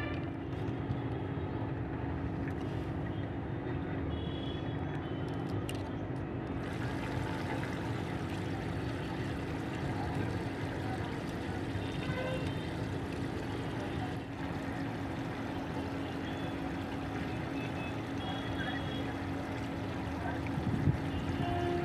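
A steady mechanical hum with a constant low rumble, and a few faint clicks from hand tools and plastic parts being handled.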